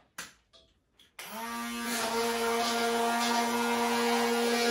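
Immersion blender switched on about a second in, its motor spinning up and then running at a steady pitch while it blends defatted pot-roast juices into a sauce. A few faint knocks come before it starts.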